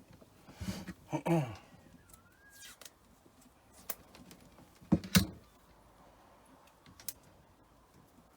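Insulating tape pulled off the roll with a short screech and torn, followed by a few sharp clicks and knocks of handling.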